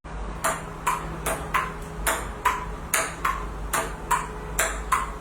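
A run of sharp, short ticks at a fairly even pace, about two a second, each with a brief ring, over a low steady hum.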